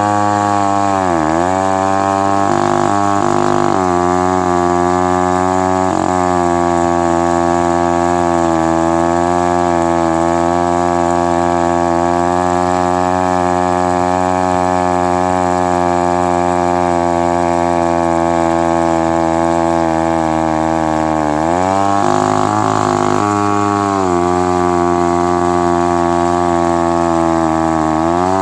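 Vintage Lombard Model 35 two-stroke chainsaw running under load while cutting seasoned maple. Its engine note sags briefly about a second in and twice more late in the cut, and holds steady in between.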